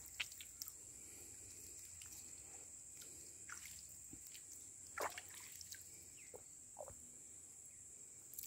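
Faint water dripping and trickling off a wet fishing cord and net as they are drawn up out of a river by hand, a few scattered drips, the clearest about five seconds in.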